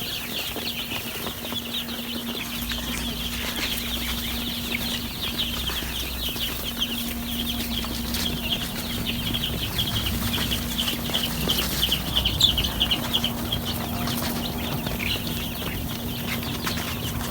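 A brood of week-old chicks peeping, many high, quick chirps overlapping continuously, over a steady low hum.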